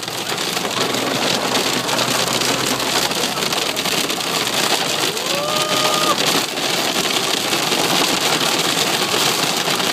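Heavy rain pelting a moving car's roof and windows in a storm, heard from inside the cabin: a dense, steady patter of drops. A short rising tone comes through briefly about five seconds in.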